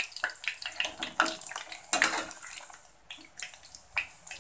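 Fish-paste balls deep-frying in a stainless steel pot of hot oil, sizzling and bubbling, while a metal slotted spoon stirs them, with irregular clicks and scrapes of the spoon against the pot.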